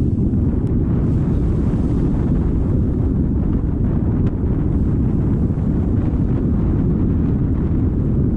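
Strong wind blowing across the microphone: a steady, loud low rumble.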